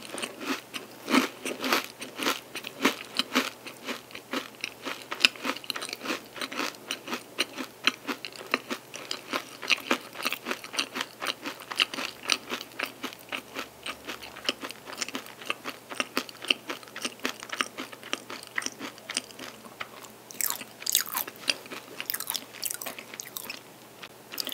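Crunchy chewing of an almond bonbon stick, a twisted pastry coated in chocolate and chopped almonds: a steady run of quick crunches that thins out over the last few seconds.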